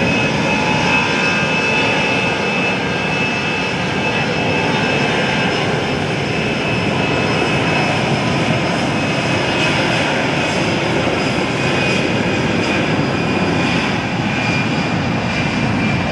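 Airbus A320 airliner's jet engines at takeoff thrust: a loud, steady jet noise with a high whine held steady, having just risen in pitch as the engines spooled up.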